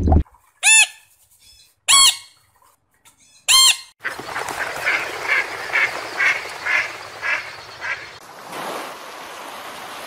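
Waterfowl calling: three loud calls in the first four seconds, each rising then falling in pitch. After that a flock of mallard ducks quacks steadily over the hiss of water, about two or three quacks a second, and from about eight seconds on, surf washes in with a steady hiss.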